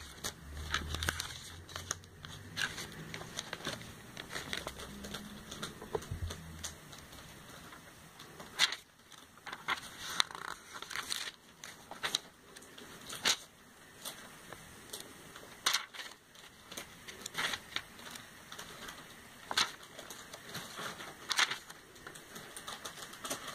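Pages of a glossy paper catalogue being turned and handled: scattered crisp rustles and sharp page flicks, a few of them louder, at uneven intervals.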